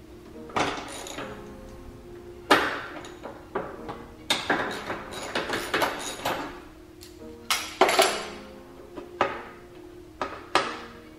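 Socket wrench and extension working on engine parts: irregular sharp metal clinks and clanks, a dozen or so, over background music.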